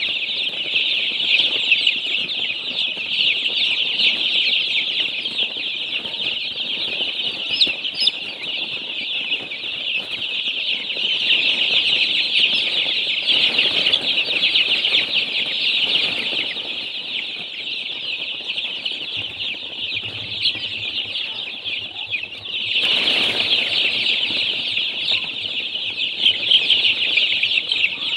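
A large flock of baby chicks peeping all at once: a dense, continuous high-pitched chorus of overlapping cheeps with no pause, swelling a little near the end.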